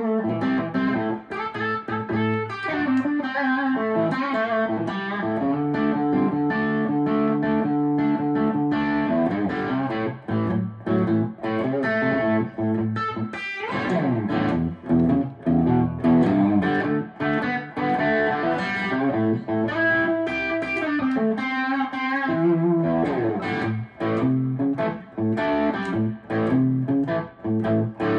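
Gibson 1954 Goldtop reissue Les Paul with P-90 pickups, played solo: a mix of picked single-note runs and chords, with chords held for a few seconds about five seconds in and a quick falling glide in pitch about halfway through.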